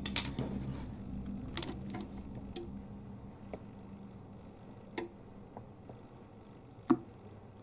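Sparse light clicks and taps, about six spread over several seconds, from an iPhone 7 LCD panel and small tools being handled over a metal heat plate. A faint low hum fades out during the first few seconds.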